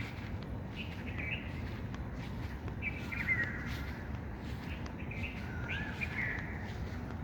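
Birds chirping: short, warbling phrases repeating about once a second, over a steady low background rumble.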